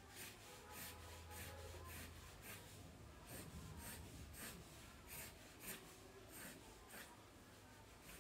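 Faint scratching of a graphite pencil drawing on paper: short strokes, roughly two a second.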